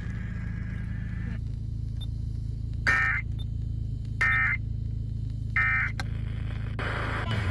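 Emergency Alert System end-of-message tones: three short bursts of screeching digital data tones (the EAS 'NNNN' end code), a little over a second apart. They play over a steady low hum on the radio broadcast and mark the end of the alert test.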